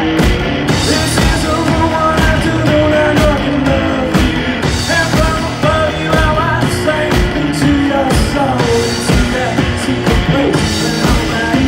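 Live rock band playing loudly: electric guitar over a drum kit beat, with a male voice singing.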